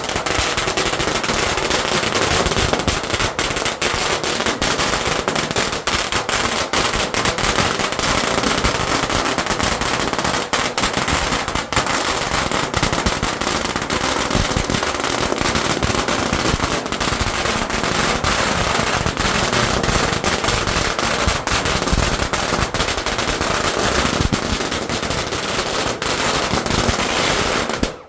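A long string of firecrackers going off in a dense, continuous rapid crackle of bangs, cutting off abruptly near the end.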